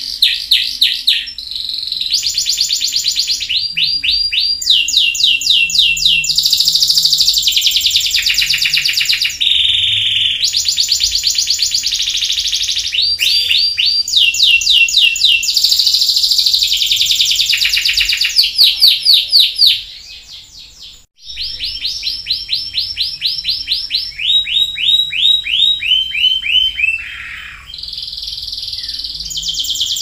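Domestic canary singing: a continuous song of fast, high-pitched trills and rolls, one run of rapidly repeated notes after another, broken by a short pause about two-thirds of the way in.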